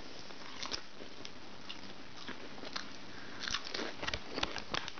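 A person biting and chewing crisp potato chips fried in olive oil: sparse crunches at first, coming thicker in the last second and a half.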